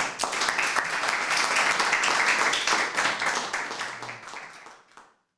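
A small audience applauding, a dense patter of many hands clapping that thins out after about four seconds and stops about five seconds in.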